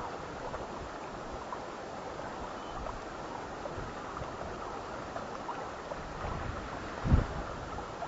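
Wind on an outdoor microphone: a steady rushing hiss, with one strong low gust buffeting the microphone about seven seconds in.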